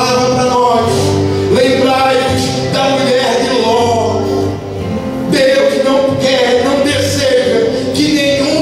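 Live worship band playing a slow Portuguese-language worship song, a man singing the lead over guitars, keyboard and drums.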